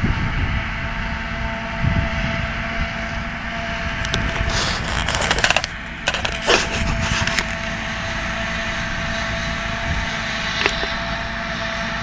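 Tractor and silage-making machinery running steadily, with a constant whine over the engine drone. A spell of crackling and clattering comes about four to seven and a half seconds in.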